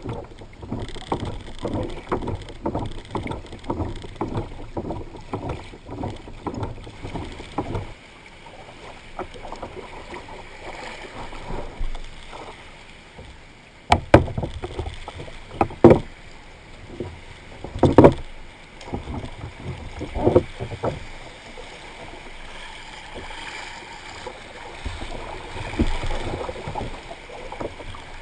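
Water splashing in quick repeated strokes, typical of paddling a small boat or kayak, followed by several loud separate knocks about two seconds apart.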